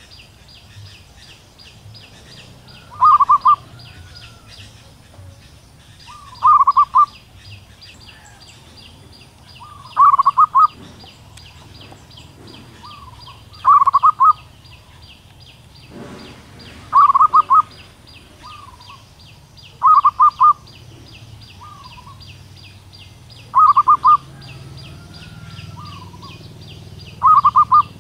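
Female zebra dove calling: a short burst of rapid notes, repeated about every three and a half seconds, eight times. A steady high rapid ticking runs behind it.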